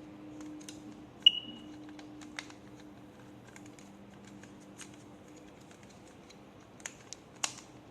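One short high beep from the smoke detector's piezo sounder about a second in, amid light plastic clicks and taps as the 9V battery is fitted and the detector handled.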